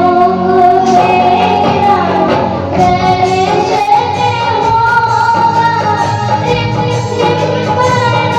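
A young girl singing a Hindi film song in a high voice over live instrumental accompaniment, holding long notes.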